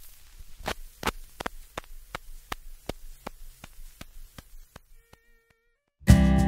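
A regular ticking, a sharp click about three times a second over a faint low hum, slowly fading away. A brief high tone follows about five seconds in, and strummed acoustic guitar music starts just before the end.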